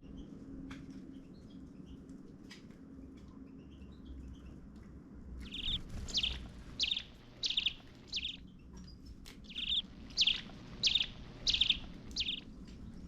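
Small bird chirping: faint scattered chirps at first, then from about halfway through two runs of about five loud, sharp chirps, spaced a little over half a second apart. A steady low hum lies underneath.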